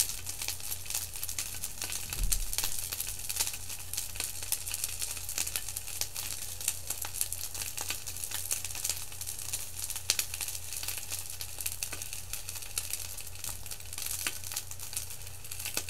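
Two rice balls sizzling in an electric skillet: a steady crackling sizzle, with a low electrical hum beneath it and a dull thump about two seconds in.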